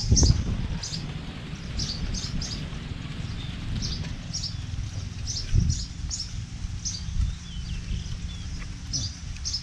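Small birds chirping again and again in short high notes, over a steady low rumble, with a soft thump at the start and another about halfway.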